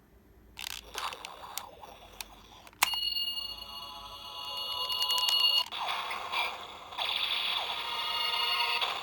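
Onkaku transformation tuning-fork toy playing its electronic sound effects through its small speaker, now working after the repair: a few clicks as it is handled, then a sharp click and a steady high ringing tone for about three seconds, followed by more sound effects until near the end.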